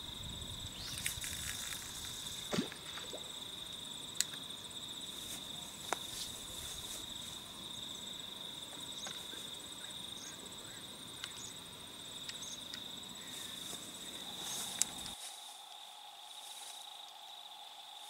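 Faint insect chorus: a steady high-pitched trill, with a few short clicks over it.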